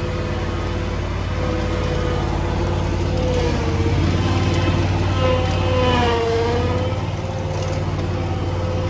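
The Ferris ISX 800 zero-turn mower's 26-horsepower Kawasaki EFI V-twin engine running steadily as the mower is driven down a trailer ramp onto grass. About five seconds in, the engine note dips briefly and comes back up.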